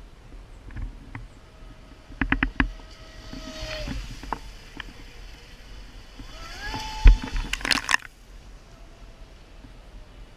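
Radio-controlled model boat's motor giving two short spells of whine that rise and fall, among sharp clicks and knocks.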